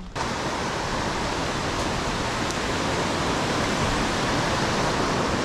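Steady rush of a rocky mountain river running fast over stones in white-water rapids.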